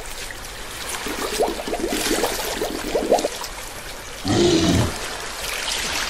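Water sound effect: a steady wash of running, trickling water, with a louder, lower surge about four seconds in.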